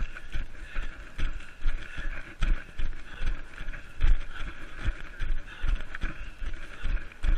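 Running footfalls on forest ground, thudding regularly about two and a half strides a second, heard through a body-worn GoPro.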